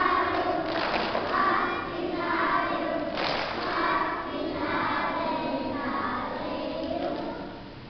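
Young children's choir singing together, with a brief sharp knock about three seconds in; the singing dies away near the end.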